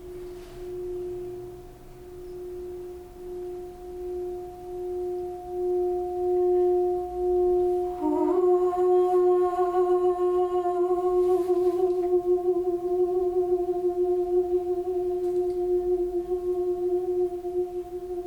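Singing bowl sounding a sustained tone that swells and pulses about once a second, growing louder; about eight seconds in, a second bowl rings in over it with brighter, wavering overtones, and both keep ringing.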